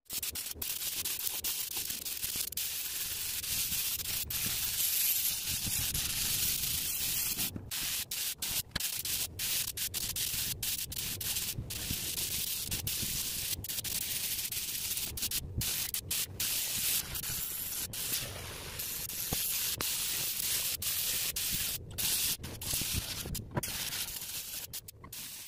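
Compressed-air paint spray gun hissing steadily as it sprays paint, broken by many brief gaps.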